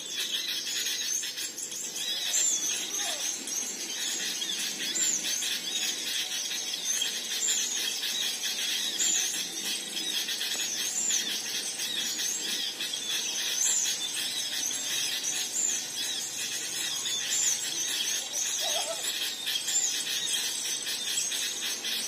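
Small songbirds chirping over and over: many short, high, arching chirps, one after another, over a steady high hiss.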